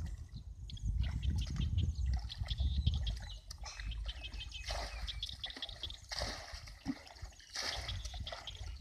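Water pouring and splashing from a plastic bucket into shallow muddy water, with sloshing as the bucket is dipped and refilled. The first few seconds are a low rumble. The splashing comes in bursts from about four seconds in.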